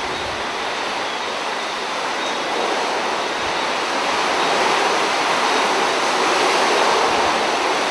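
Sustained hurricane wind blowing through trees, a steady rushing noise that swells a little through the middle and eases slightly near the end.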